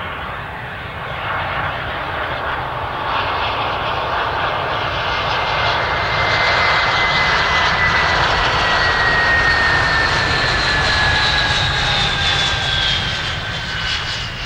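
Airbus A320 jet engines on final approach as the airliner passes close by: steady jet noise that grows loudest a little after halfway, with a high engine whine that slides slowly down in pitch as it goes by.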